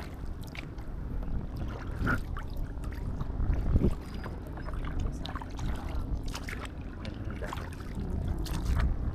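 Kayak paddling: paddle blades splashing and dripping water in irregular small splashes, over a low rumble of wind on the microphone, with one louder thump about four seconds in.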